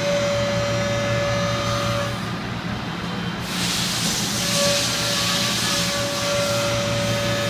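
Machine tool running a high-speed cut in 15-5 stainless steel, with a steady whine and a low hum. About three and a half seconds in, a loud hiss joins it.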